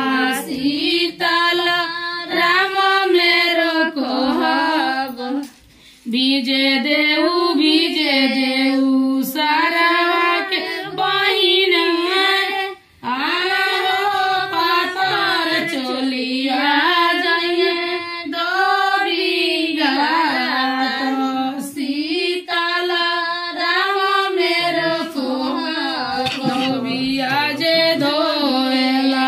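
High voices, likely women, singing a traditional wedding song in long melodic phrases, broken twice by short pauses.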